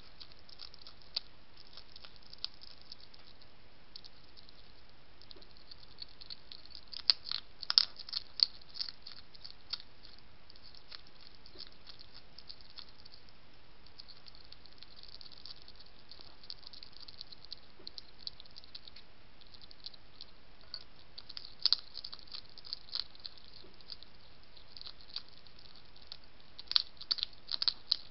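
A European hedgehog crunching dry food pieces from a dish, with sharp crunches that come in bursts, loudest about seven seconds in, again past twenty seconds, and near the end.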